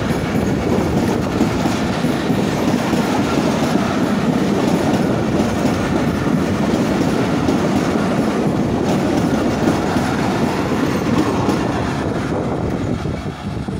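Passenger coaches of a Pakistan Railways express rolling past close by, a steady rumble of wheels on the track that eases off near the end as the last coaches go by.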